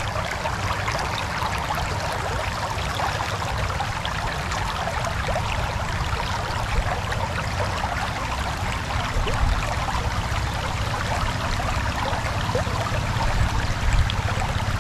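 Steady rush of water flowing fast over the shallows of an irrigation canal, with a low rumble underneath.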